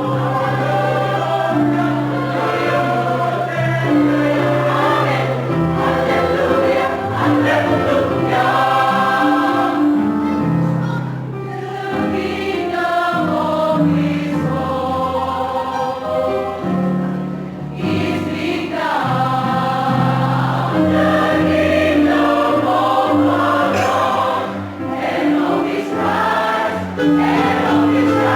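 A church choir singing a sacred choral piece in several parts, with sustained low voices beneath moving upper voices.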